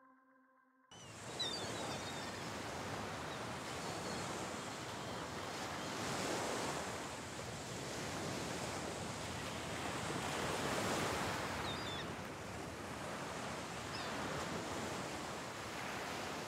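Sea waves washing onto a shore: a steady surf hiss that swells and ebbs every few seconds, starting about a second in, with a few faint gull calls.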